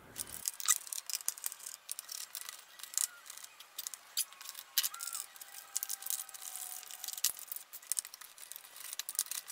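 Light, irregular metallic clicks and rattles of a sheet-steel shield cover over an LCD monitor's power supply board being handled and worked loose.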